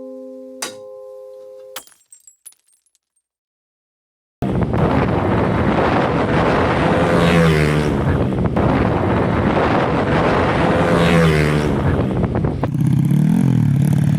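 A few plucked music notes end in the first two seconds. After a pause, a Yamaha Vega motorcycle's drag-tuned 170cc four-stroke engine runs loud and is revved up and down several times, with a sudden cut about three-quarters of the way through.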